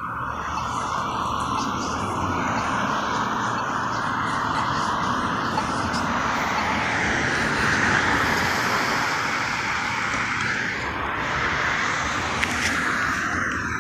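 A vehicle passing by: a steady rushing sound that swells in, holds for about ten seconds and fades away.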